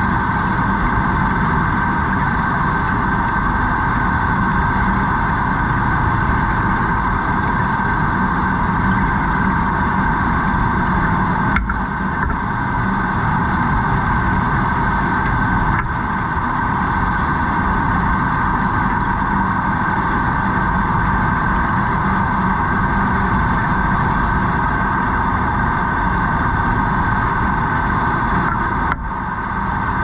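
Steady mechanical drone heard underwater, continuous and unbroken, with a strong hum over a low rumble; it dips briefly twice, once about midway and once near the end.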